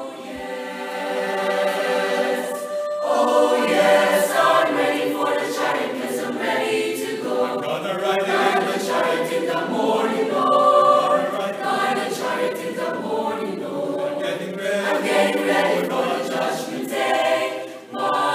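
Mixed school choir of boys and girls singing, opening on soft held notes and swelling fuller and louder about three seconds in.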